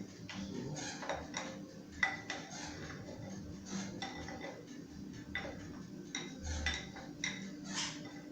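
Utensil clinking and scraping irregularly against a mixing bowl as beaten egg whites are mixed into cake batter, over a faint steady hum.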